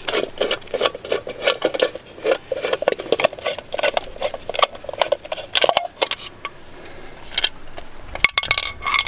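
Hand tool working the retaining screw out of a trailer wheel's metal centre cover: a quick run of small clicks and scrapes, then quieter handling with a few sharp clicks near the end as the cover comes off the hub.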